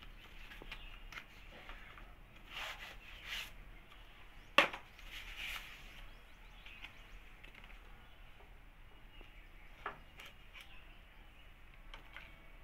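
A beard trimmer and its cardboard and paper packaging being handled by hand: soft rustling and scattered light clicks, with one sharp click about four and a half seconds in. The trimmer is not running.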